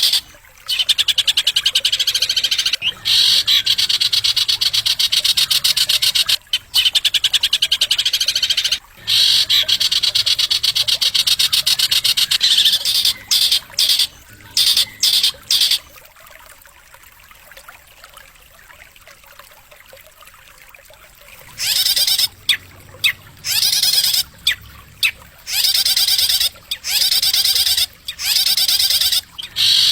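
Recorded songbird song used as a masteran track for training caged birds: long runs of rapid, sharp, high trills broken by short gaps, dropping away for about five seconds in the middle before resuming.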